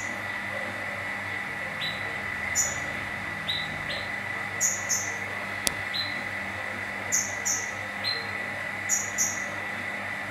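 Kolibri ninja sunbird calling with short, very high chirps, often two in quick succession, repeated every second or two. The unusual call resembles a magpie-robin's.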